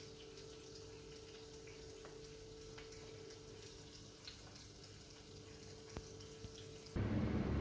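Liquid being poured from a glass measuring jug onto shredded cheese and broccoli in a ceramic baking dish: a faint pour with a few soft ticks over a low steady hum. Near the end a much louder low rushing noise cuts in suddenly.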